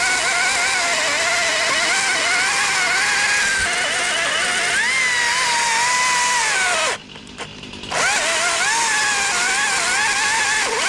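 Gas chainsaw running at high revs, its pitch wavering up and down. About seven seconds in, the pitch falls and the sound cuts out for about a second, then the saw comes back at full speed.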